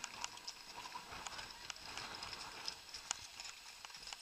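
Horses' hooves clopping irregularly on a track, in scattered sharp clicks.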